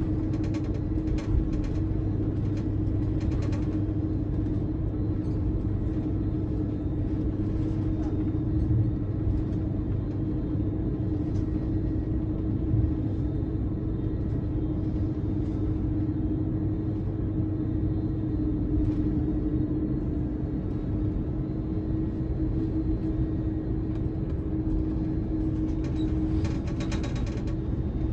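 Airbus A330-200 airliner cabin noise, heard from inside the cabin: a steady low rumble of its General Electric CF6 engines and airflow, with one constant hum throughout.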